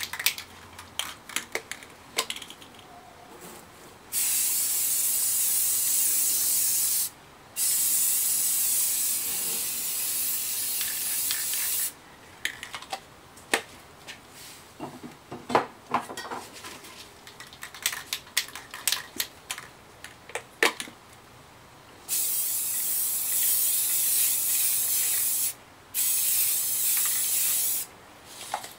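Aerosol spray paint can hissing in four long bursts of a few seconds each, the second and fourth following the one before after a gap of under a second. Scattered clicks and knocks come in between.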